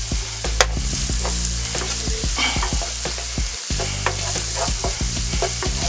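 Diced onion, celery and garlic sizzling in a hot frying pan while being stirred, the utensil clicking and scraping against the pan throughout.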